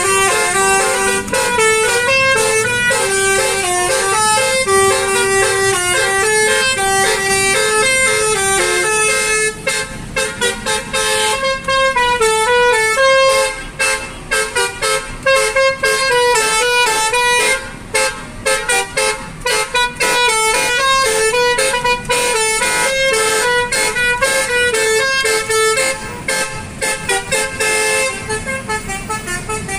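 Basuri telolet horn, a multi-tone musical car horn, playing a tune of notes that step up and down. From about ten seconds in the notes turn quick and short, and the horn gets quieter near the end.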